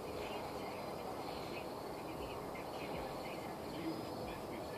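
Insects chirping over a steady low background hiss.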